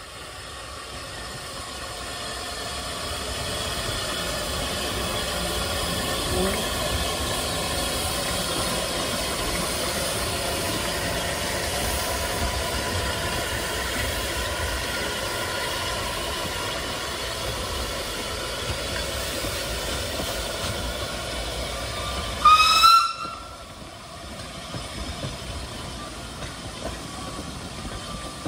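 Narrow-gauge tank steam locomotive working past with a steady hiss of steam, then one short, loud blast of its steam whistle near the end.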